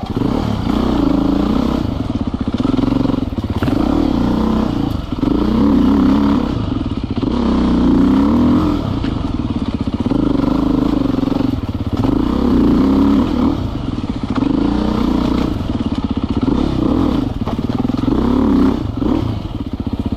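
Enduro dirt bike engine running while riding singletrack, its revs rising and falling over and over as the throttle is worked.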